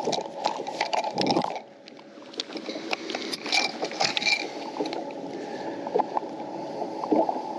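Clicks and knocks of handling on a bass boat's deck as a bass is clipped onto a lip-grip scale, over a steady low rushing background.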